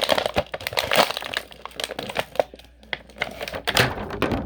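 Plastic action-figure packaging crinkling and crackling as it is handled, a dense run of sharp crackles that stops abruptly at the end.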